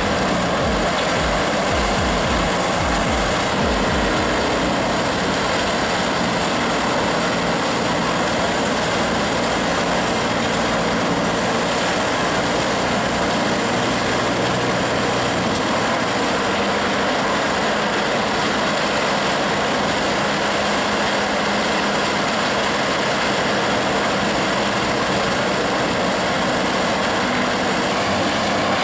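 A Willibald EP 5500 mobile shredder with a 520-horsepower engine, running steadily under load as it grinds a heap of branches into wood chips.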